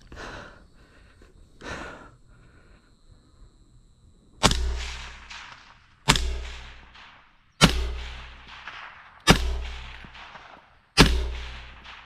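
Five rifle shots from a scoped rifle, about a second and a half apart, each followed by a fading echo. They start after a few quieter seconds.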